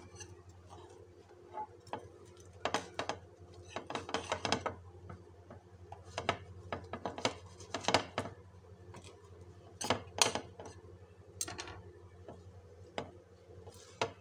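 Table knife cutting through a cauliflower-stuffed paratha on a ceramic plate, the blade scraping and clicking against the plate in irregular strokes, over a steady low hum.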